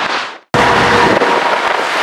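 Scania tractor-tanker on a wet highway: steady tyre-spray hiss and engine noise. The sound fades out and cuts back in loud about half a second in.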